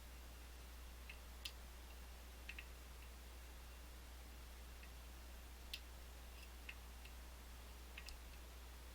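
Faint, scattered metallic clicks, some in quick pairs, as a pick pushes down the pins of an Izis French pump lock held under light tension, over a steady low hum.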